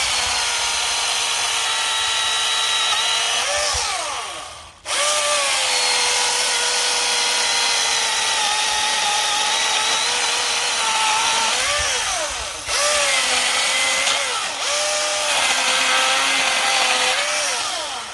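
Milwaukee M18 Fuel 16-inch battery chainsaw running flat out and cutting wood, its electric motor whine dipping in pitch as the chain loads up in the cut and rising again as it frees. The trigger is let off briefly about five seconds in and the saw spins back up, with two shorter let-offs later, before it stops at the very end.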